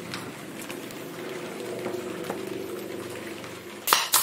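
Pneumatic brad nailer firing twice in quick succession near the end, driving nails into the edge of a glued wooden joint, over a steady low hum.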